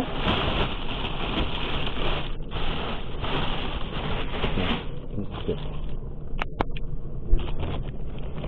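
A plastic carrier bag rustling and crinkling as it is handled and opened close to the microphone, for about five seconds with a brief pause, then quieter handling with a couple of sharp clicks.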